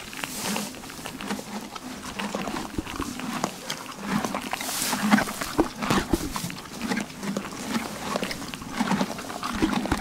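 Draft horse chewing hay up close: rhythmic crunching and crackling of dry hay in its mouth.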